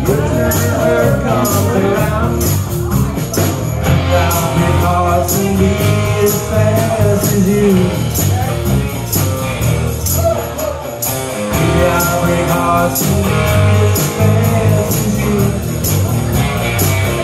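Live rock band playing with electric guitar, electric bass and drum kit through a PA, keeping a steady beat with no lyrics sung.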